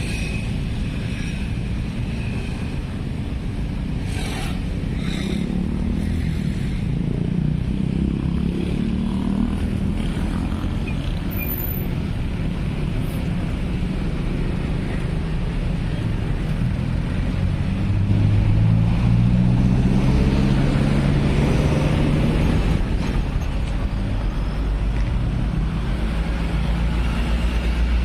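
Road vehicles such as cars and motorcycles passing close by, engines running over a steady low rumble. Engine notes rise as vehicles pull away, once about a third of the way in and again past halfway, where it is loudest.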